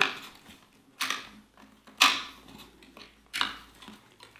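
A cable being pushed and pulled through a motorcycle's plastic front fairing frame: hand-handling sounds of the cable rubbing and knocking against the plastic, with three sharp clattering scrapes, about a second in, two seconds in and near three and a half seconds, and small ticks between.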